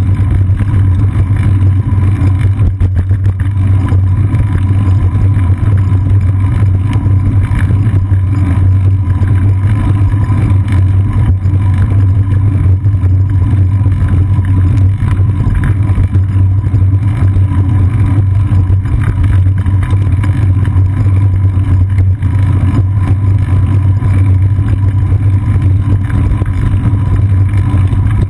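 Wind buffeting a seat-post-mounted action camera on a moving bicycle, mixed with rolling and road vibration from the bike, heard as a loud, steady low rumble with constant fluttering.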